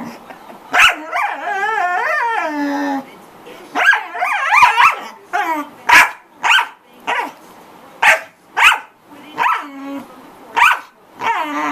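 Corgi vocalising at full volume: a drawn-out wavering howl-like call about a second in and another around four seconds, then a run of short sharp barks, one every half second to a second.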